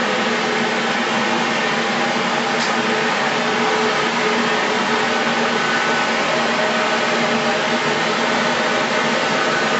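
Sheep wool washing machine running: a steady, even mechanical noise with a constant hum in it.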